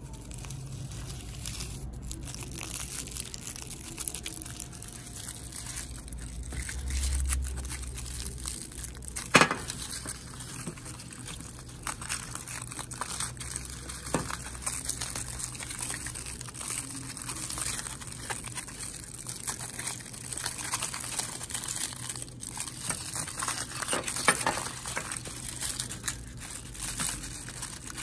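Aluminium foil crinkling and crumpling as it is unwrapped by hand from a small diecast toy car, an uneven crackle that goes on throughout. One sharp click stands out about a third of the way in.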